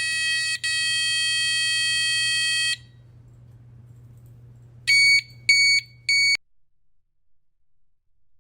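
Piezo buzzer of a DM-45F2022 sound effect module playing its built-in electronic alarm effects: a steady high, shrill tone lasting under three seconds, then, after a pause, three short beeps.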